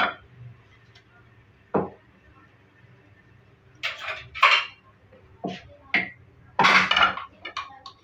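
Kitchen dishes and utensils clattering: scattered short knocks and clinks, with a longer clatter about seven seconds in.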